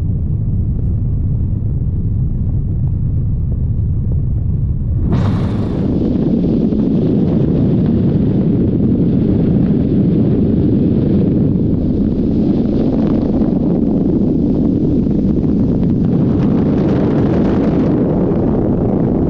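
Helicopter cabin noise: a steady low rumble with a faint whine. About five seconds in it changes abruptly to loud, fluttering wind noise on the microphone over the helicopter's rumble.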